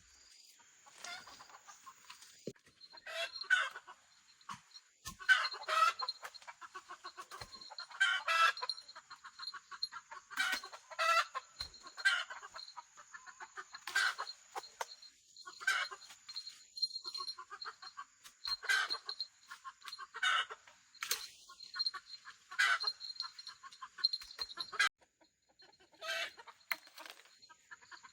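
Chickens clucking: short pitched calls repeated every second or two, with a few sharp clicks between them.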